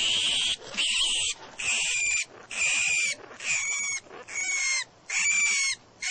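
A caged rodent giving a steady series of high, squeaky calls, each about half a second long, a little more than one a second.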